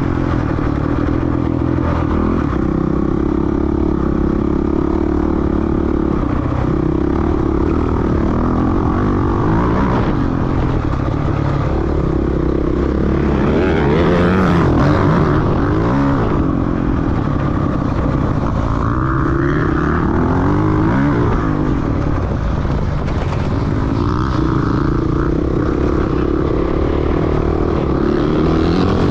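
Dirt bike engine under hard riding off-road, its pitch rising and falling over and over as the throttle is opened and closed.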